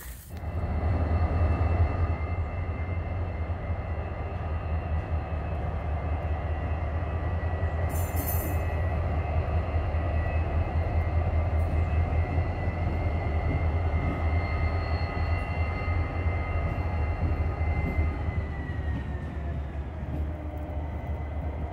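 Norfolk Southern diesel locomotive passing with its train: a steady low engine drone with rail noise that comes up within the first second and holds. A high whine runs over it and drops in pitch near the end, with a brief hiss about eight seconds in.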